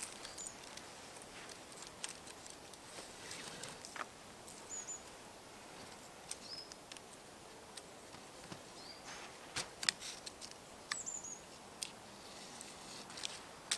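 Woodland ambience: short high bird chirps now and then, over scattered sharp clicks and light rustling.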